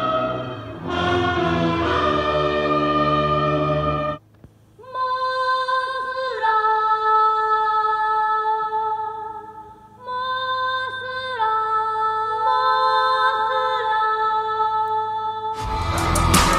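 Background music: a vocal piece of long held sung notes, with a short break about four seconds in. Near the end a louder, harsher, noisy passage with sharp clicks cuts in.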